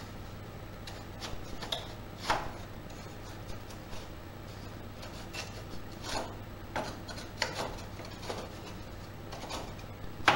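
Slotted wooden divider strips of a compartment tray being lifted out and fitted back by hand: scattered light wooden knocks and clicks with some rubbing, the loudest knock at the very end.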